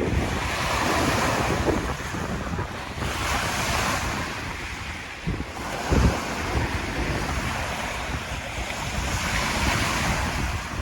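Light waves on Lake Superior washing in, swelling and fading every few seconds. Wind gusts rumble on the microphone, one strongly about halfway through.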